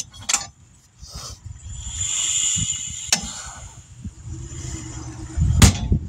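Tire changing machine working a tire off a wheel that holds a tire-pressure sensor. There is a hiss of air about two seconds in, sharp clicks, and a loud clunk near the end.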